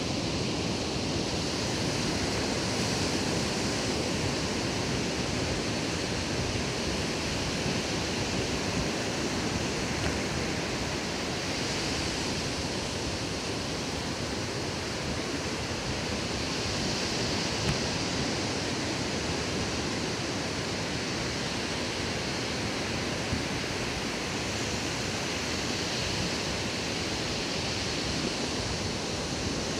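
Ocean surf breaking on a sandy beach, a steady wash of noise that swells now and then as waves come in.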